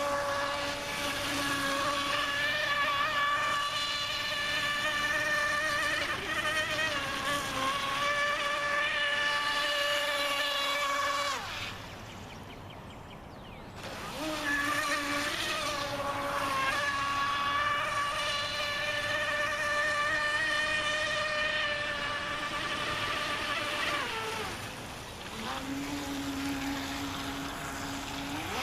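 Brushless electric motor of an RC racing boat driving a Kyosho Dolphin outboard through a flex shaft, running at speed with a steady high-pitched whine. About halfway through the whine drops away for a couple of seconds and then comes back, and near the end it falls in pitch briefly before rising again as the throttle is eased off and reapplied.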